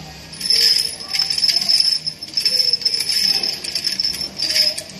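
A handful of steel rivets clinking and jingling against each other as they are rolled in a hand, with quick irregular metallic clicks.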